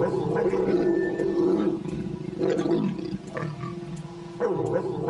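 A pair of leopards growling while mating. The growls come in loud bouts, with a brief lull about two seconds in and a longer, quieter stretch a little past three seconds before they swell again.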